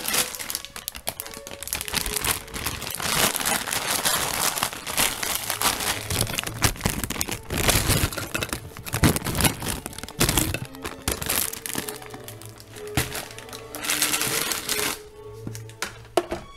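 Margaritaville blender shaving and crushing ice: a dense crunching rattle full of sharp cracks that starts suddenly and dies down near the end, over background music.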